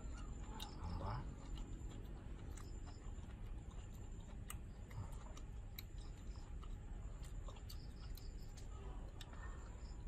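Quiet eating sounds from someone chewing roast chicken held in his hands: scattered, irregular wet clicks and lip smacks, with a short low 'mm' about a second in.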